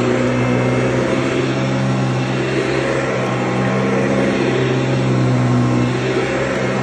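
Restored 1960s Eureka Model 260D vacuum cleaner running, a steady motor hum with a constant pitch.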